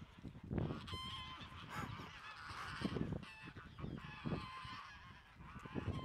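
A flock of domestic geese honking, many short calls overlapping one another, with irregular low thumps and rumble underneath.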